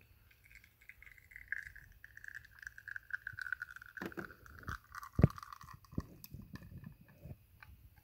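La Pavoni Europiccola manual lever espresso machine during the lever pull that presses water through the coffee: a faint high tone slowly falls in pitch over about five seconds, and several short knocks and clunks follow, the loudest about five seconds in. There is no pump sound.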